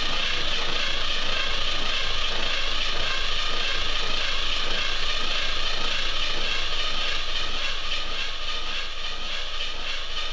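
1967 Camaro's 350 V8 being turned over on the starter motor without firing, a steady mechanical churn, cranked to pump fuel up through the line into the filter.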